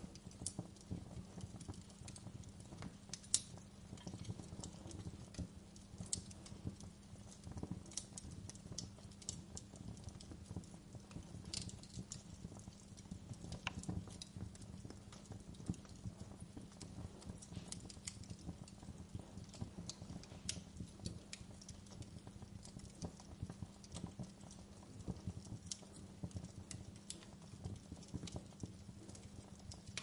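Wood fire burned down to glowing embers, crackling with irregular small pops and one sharper pop about three seconds in, over a low steady hum.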